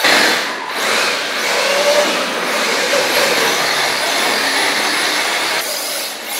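Radio-controlled cars driving fast on a concrete floor: a steady rushing noise of motors and tyres, with a faint whine rising and falling about two seconds in. The noise eases off near the end.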